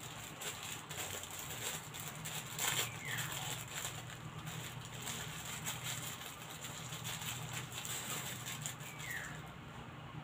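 Thin plastic bag of salt crinkling and rustling with faint irregular clicks as it is handled and opened, over a low steady hum. Two short falling chirps sound, about 3 s and 9 s in.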